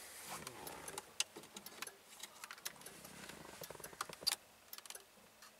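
Scattered light clicks, taps and rattles of a VAZ-2101 instrument cluster housing and its wiring plugs being handled as it is pulled out of the dashboard, the sharpest about a second in and just after four seconds.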